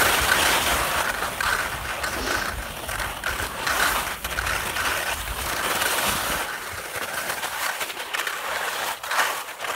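Skis scraping and hissing over soft, suncupped spring snow: a steady rough sliding noise that eases off about two-thirds of the way through, with a few sharp clicks near the end.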